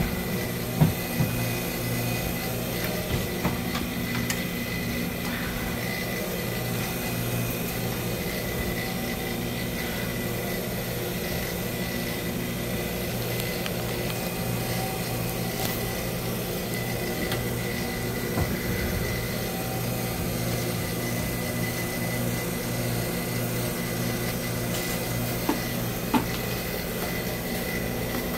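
Steady low machine hum with a thin high tone over it, and a few light knocks and clicks scattered through, mostly near the start and again near the end, as cord and cable are pulled through a ceiling.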